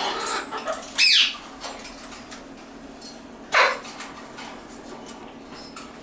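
Moluccan (salmon-crested) cockatoos calling: two short, loud squawks with sweeping pitch, about a second in and about three and a half seconds in, with softer chatter just before the first.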